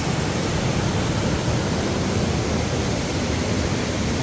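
Steady rush of a waterfall: an even, unbroken hiss with a heavy low rumble beneath it.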